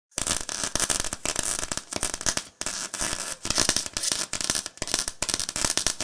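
Electric welder's arc crackling and sizzling, dense with sharp pops, in runs broken by short pauses, the clearest about two and a half seconds in.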